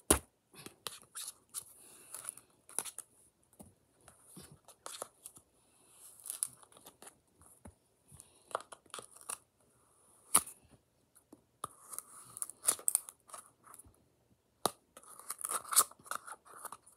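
Kinetic sand being scraped and scooped out of its plastic tub: irregular gritty scratching with small clicks and knocks against the plastic, a few sharper knocks, and a busier stretch near the end.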